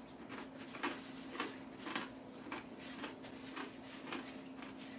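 Crunchy chewing of cold, crispy fried chicken with dentures, a crunch about twice a second, over a faint steady hum.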